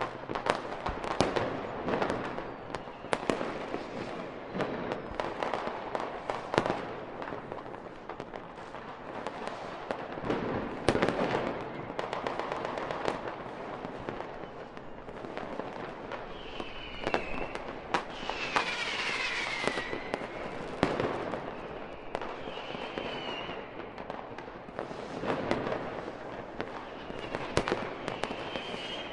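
Fireworks display: a steady run of sharp bangs and crackling, with whistling shells gliding in pitch around the middle and near the end, one falling whistle the clearest.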